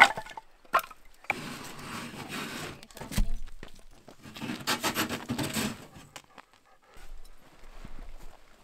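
Split firewood being handled and stacked: sharp wooden knocks, the loudest at the very start and about three seconds in, with two stretches of rough scraping and rubbing as pieces are slid into place.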